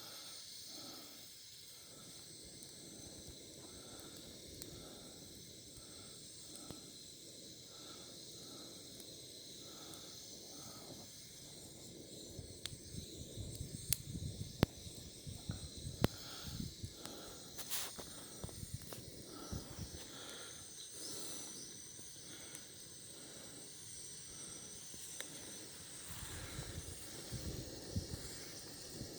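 Wood bonfire burning with a steady hiss, and sharp pops and crackles that cluster from about the middle onward. Soft low rumbles come and go under it.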